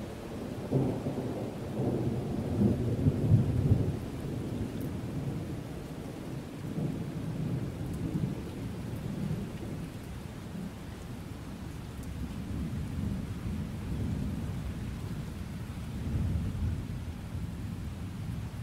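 Thunder rumbling over steady rain. A peal breaks about a second in and is loudest around three seconds, then rolls on in lower swells, with another swell near the end.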